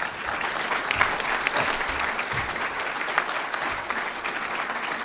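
Audience giving a round of applause: many hands clapping in a dense, steady patter.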